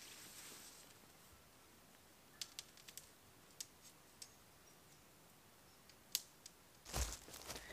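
Light, scattered clicks of tent clips being snapped onto the poles, with soft rustling of tent fabric at the start and a louder rustle and bump near the end.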